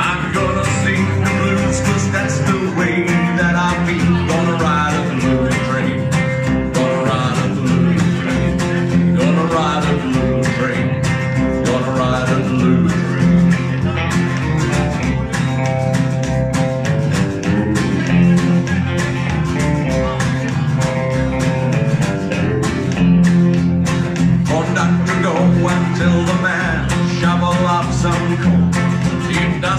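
Live country band playing an instrumental break: strummed acoustic guitar and upright bass keep a steady beat under an electric guitar lead with bent, gliding notes.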